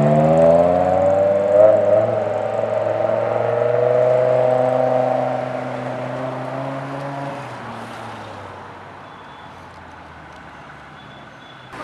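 BMW M6's V10 engine through an Eisenmann race exhaust, accelerating hard away. The exhaust note climbs in pitch, breaks briefly about two seconds in, keeps rising, then fades into the distance and is gone after about seven and a half seconds.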